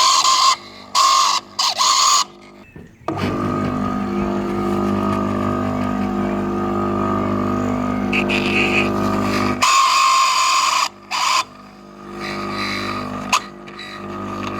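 Electric motor of an Electrim PL-75 self-priming pool pump running with a steady hum, starting about three seconds in and stopping about nine and a half seconds in. Short bursts of another sound come before and after it.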